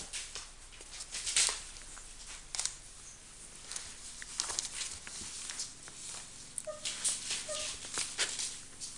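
Newspaper crackling and rustling in short bursts under a five-week-old Border Collie puppy as it wriggles on its back and mouths a finger, with two brief high squeaks from the puppy near the end.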